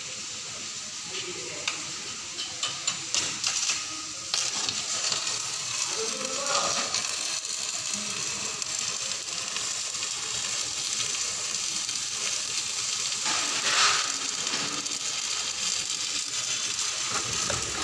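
Electric arc welding: the arc crackles and pops unevenly for the first few seconds as it is struck, then settles into a steady crackling sizzle from about four seconds in.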